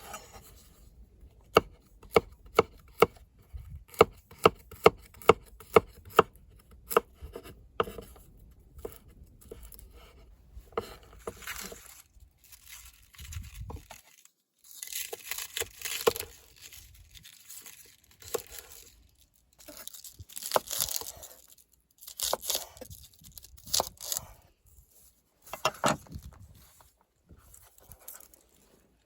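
Knife chopping on a cutting board, sharp cuts about twice a second for the first several seconds, followed later by several bursts of tearing and rustling.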